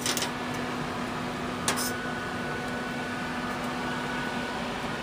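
Steady hum of a running pellet grill's fan, with a short click about two seconds in.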